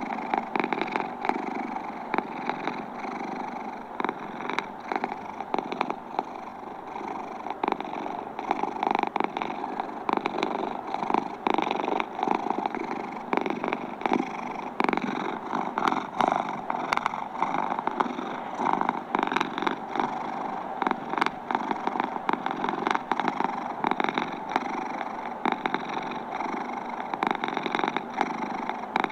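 Domestic cat purring continuously, close up, with many small clicks through the purr.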